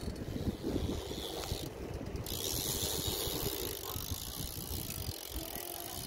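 BMX bike coasting along the track, its freewheel hub ratcheting and its tyres rolling, with wind rumbling on the microphone.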